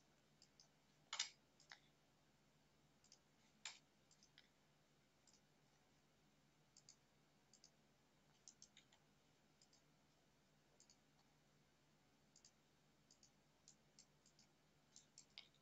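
Faint computer mouse clicks, scattered and irregular, some in quick pairs, over near silence; two slightly louder clicks about one and four seconds in.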